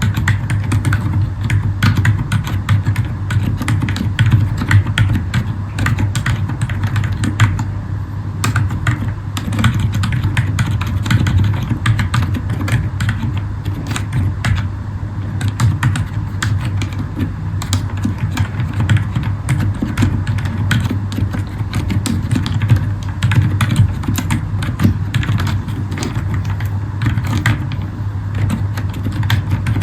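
Continuous fast typing on a Zifriend ZA63 mechanical keyboard with Akko Fairy silent linear switches: a dense, irregular run of soft, damped keystrokes. The recording is heavily amplified, with a steady low hum under the keystrokes.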